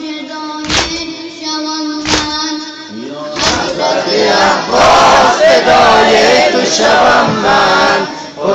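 Shia Muharram nauha: a single voice holds a long sung note over slow, even chest-beating strikes about every second and a half. About three seconds in, a crowd of men joins in loud group chanting.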